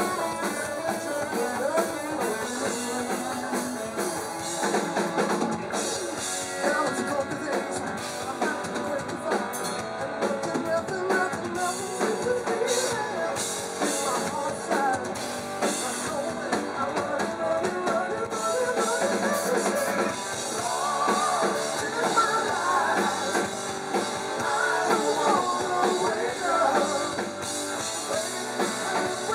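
Live rock band playing: electric guitar, bass guitar and drum kit.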